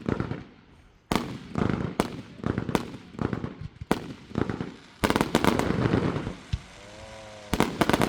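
Fireworks going off: a series of sharp bangs about a second apart, with a dense burst of rapid crackling about five seconds in and more bangs near the end.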